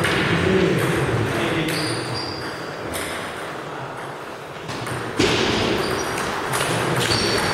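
Table tennis balls clicking off rubber bats and tables in a large hall, from several tables in play, with a sharp hit about five seconds in as the near rally gets going.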